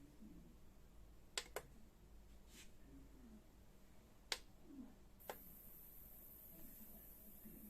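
A few short, sharp clicks in near silence: two in quick succession about a second and a half in, a fainter one, then a louder single click past the middle and another shortly after. A faint high hiss cuts out at the start and comes back about five seconds in.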